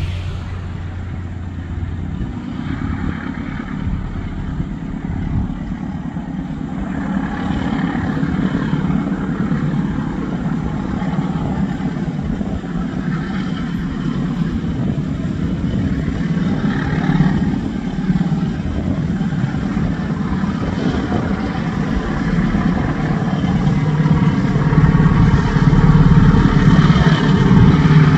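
Two diesel locomotives hauling a passenger train, their engines running with a steady low rumble under load. The rumble grows louder over the last several seconds as the train draws closer.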